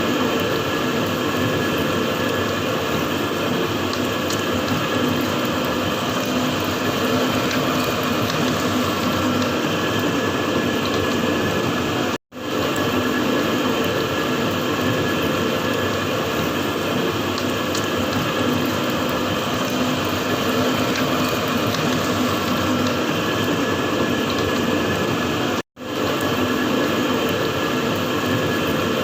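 Galvanizing barrel-plating machine running: a steady mechanical clatter from its gear drive, with a steady hum underneath. The sound cuts out completely for a moment twice, about twelve seconds in and near the end.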